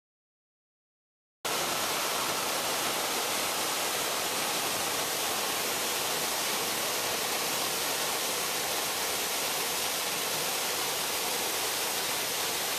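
Marymere Falls: a steady, even rush of falling water that cuts in abruptly about a second and a half in, after dead silence.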